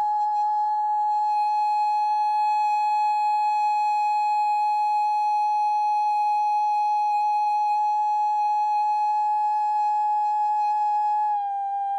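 A woman's voice holding one high, steady sung tone in sound-healing toning, dipping slightly in pitch near the end.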